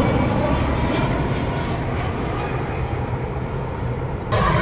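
Jet engines of a Peach Airbus A320 on final approach: a steady roar whose higher part slowly dies away, then a sudden louder roar near the end where the recording cuts to another take.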